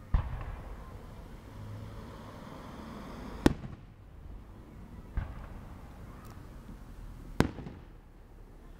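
Aerial fireworks going off: four sharp bangs, unevenly spaced, with a low rumble and crackle carrying on between them.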